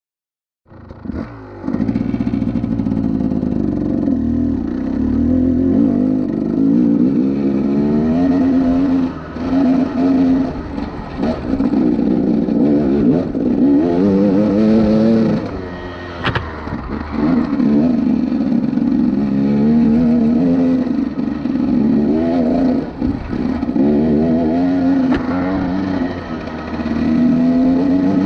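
KTM 300 XC two-stroke dirt bike engine revving up and down through the throttle as the bike rides over a rocky trail, dipping briefly several times. A single sharp knock is heard just past the middle.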